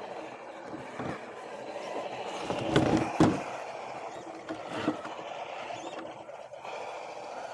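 Scale RC crawler's electric motor and gears whirring steadily as it creeps over the trail, with knocks and scrapes from the tyres and chassis on rock, loudest about three seconds in and again near five seconds.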